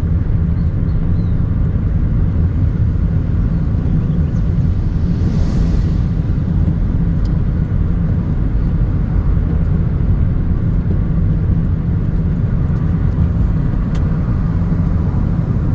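A car driving on a wet road: a steady, loud low rumble of engine and road noise. A brief hiss comes about five seconds in.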